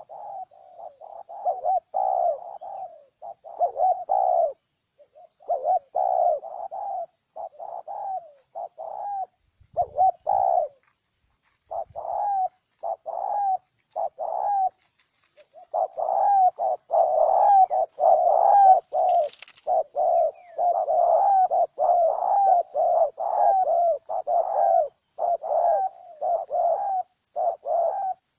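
Spotted dove cooing: short low coo notes repeated in runs, broken by a few short gaps early on, then coming faster and denser through the second half. Faint high chirps repeat steadily above the cooing, about once a second.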